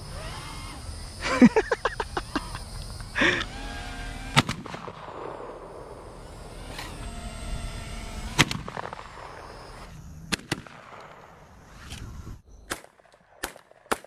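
Gunfire: a quick string of about six shots near the start, then single shots every second or few seconds, some close together in pairs.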